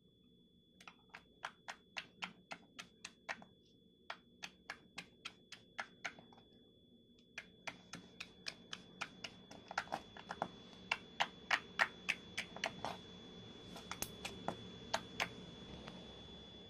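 Slime being pressed and poked by fingers, giving a quick run of sharp clicking pops about three a second, with a short break partway through.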